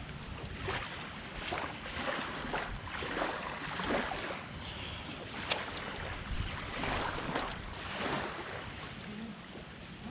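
Seaside ambience: small waves washing on a sandy shore, with wind. It is an even rushing that swells and eases every second or so.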